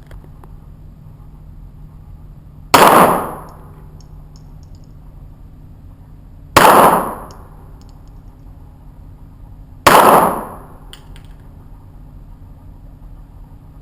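Three single shots from a Smith & Wesson .22 pistol, spaced about three to four seconds apart, each ringing briefly off the walls of an indoor range, over a steady low hum.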